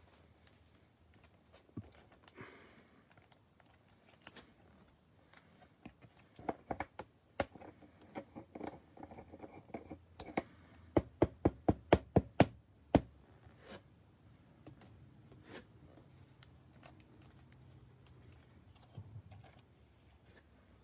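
Trading cards and rigid plastic top loaders handled on a table: scattered taps and clicks, with a quick run of about eight sharp clicks around the middle.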